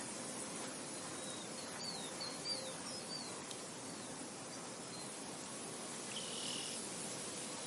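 Wind rustling steadily through a field of wheat, an even hiss. A few short, high chirps come in the first half, and a short buzzy call comes about six seconds in.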